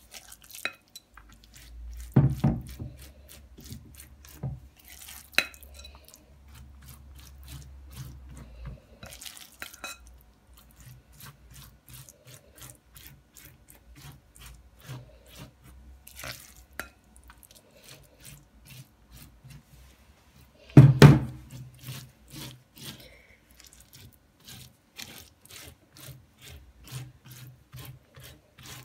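Silicone spatula spreading a sticky chopped-hazelnut filling over puff pastry on baking paper: many quick, repeated dabbing and rubbing strokes. Two louder knocks stand out, one about two seconds in and a stronger one about two-thirds of the way through.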